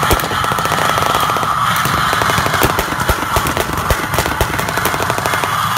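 Rifle fire with blank rounds: rapid, irregular bursts of automatic and single shots, many per second, from several guns at once.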